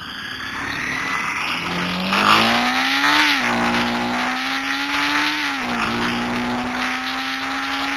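Honda CBR250R's single-cylinder engine accelerating, its pitch climbing through the gears with two upshifts, one about a third of the way in and one past halfway, over steady wind rush on the mic.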